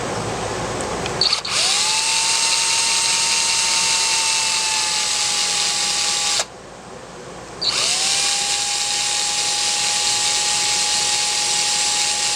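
Power drill run twice for about five seconds each, with a short pause between: each time it spins up quickly to a steady whine and holds its speed until it stops suddenly.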